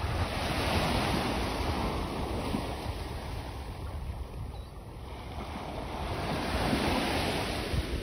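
Gulf of Mexico surf washing onto the beach, swelling twice, with wind rumbling on the microphone.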